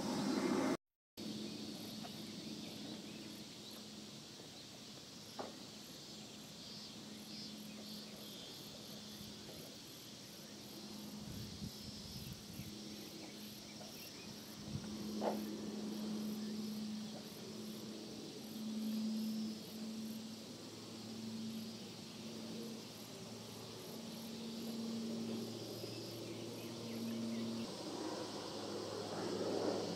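Insects chirping in a fine, rapid trill over a faint low hum from a distant aircraft; the hum pulses in and out, stronger in the second half.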